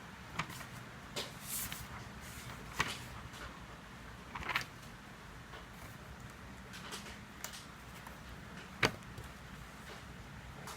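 Scattered light clicks and knocks over a faint steady low hum, the sharpest knock about nine seconds in.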